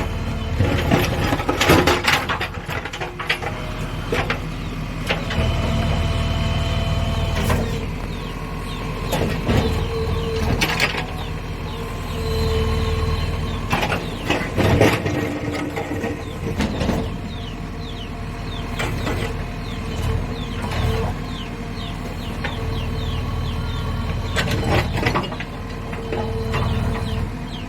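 JCB backhoe loader's diesel engine running under load and swelling in spells as it works, with a steady hydraulic whine and occasional sharp knocks.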